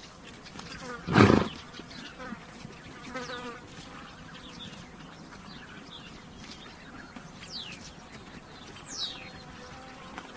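A horse snorts once, a short loud blow through the nostrils about a second in. Flies buzz and small birds give short falling chirps in the background.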